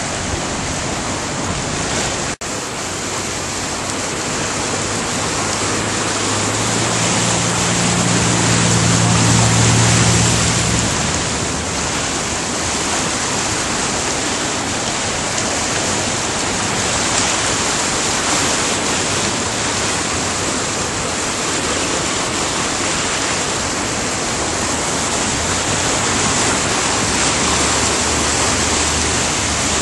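Flooded Boquet River rushing past in a steady, loud torrent. A low hum joins for a few seconds partway through.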